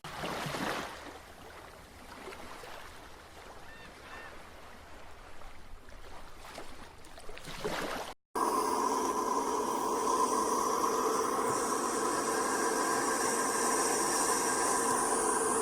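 Two nature-ambience recordings played back to back, split by a brief silent cut about eight seconds in. The first is a quieter rushing noise with a few faint chirps. The second is a louder, steady drone with a held tone.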